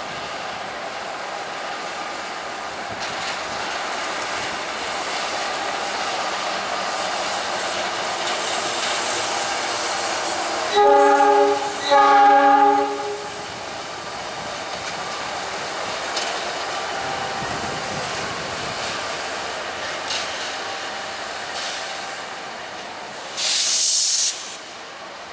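KAI CC 206 diesel-electric locomotive running light over the rails with a steady engine and wheel rumble. About halfway through it sounds two short blasts of its multi-note horn, and near the end there is a sharp hiss about a second long.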